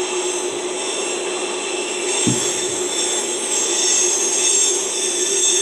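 Freight train cars rolling past on the rails: a steady rumble with high, steady tones over it, and a single thump about two seconds in.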